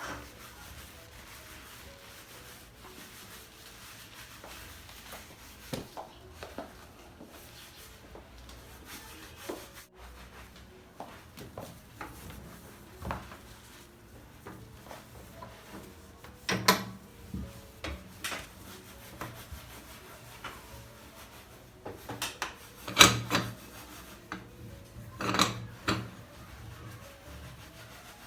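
Household objects being handled: soft rubbing and scraping with scattered light knocks, and a few louder clatters in the second half.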